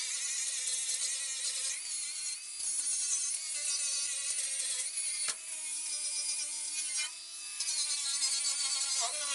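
Cordless angle grinder running against steel body panels. Its whine shifts in pitch several times, with brief dips about five seconds in and again near seven seconds.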